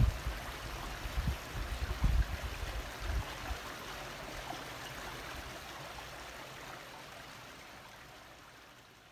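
Outdoor rushing hiss with a few low wind thumps on the microphone in the first few seconds, fading away steadily toward the end.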